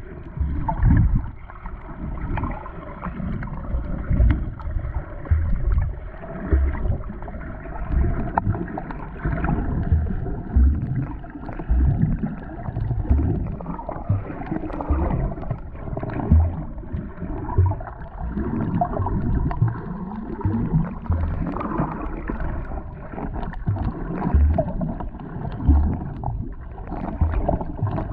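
Muffled water sounds: gurgling and sloshing with irregular low thumps.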